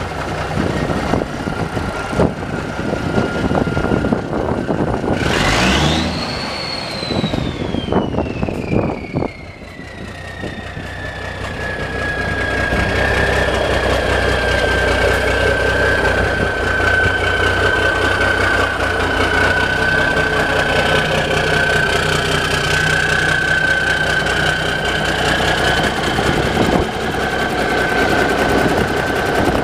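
1986 Freightliner's Cummins diesel engine idling with a steady clatter. About five seconds in it is revved once, and a high turbo whistle shoots up with it, then slowly winds down over several seconds and settles into a steady whine over the idle.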